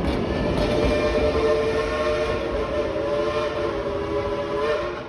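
Train whistle blowing one long, steady, multi-toned blast that sags in pitch near the end, over a low rumble.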